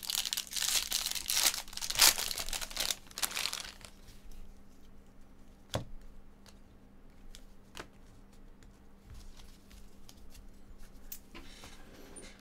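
Foil wrapper of a baseball card pack torn open and crinkled for the first three and a half seconds or so, then the quieter rustle and ticks of the cards being handled, with one sharp tick about six seconds in.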